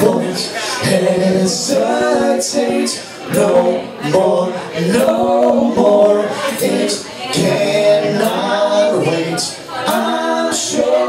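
Live band vocals sung nearly a cappella, voices singing a melody in harmony with the bass and low end dropped out. Light high ticks keep time underneath.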